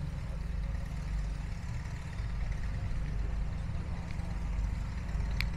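Vintage tractor engine idling steadily at low revs, with a single sharp click near the end.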